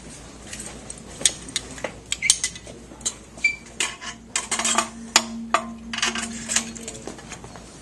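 Metal parts and hand tools clicking and clinking irregularly as a transducer mounting blade is pushed into its clamp slot and its set screw is tightened with a wrench.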